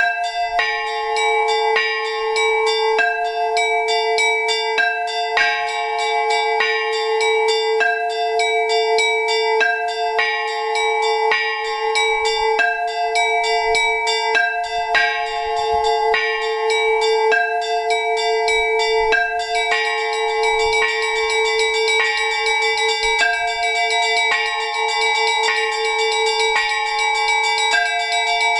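Orthodox monastery church bells rung together in a rapid peal: small bells struck quickly in a repeating pattern over the sustained ring of a larger bell. About two-thirds of the way through, the small-bell pattern turns denser and brighter. This is the ringing that calls to a requiem service.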